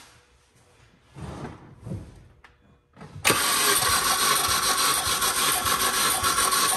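A couple of faint knocks, then about three seconds in the Mini Cooper S engine is cranked over steadily on the starter motor for a compression test, the cylinder's pressure building to about 120 psi on the gauge.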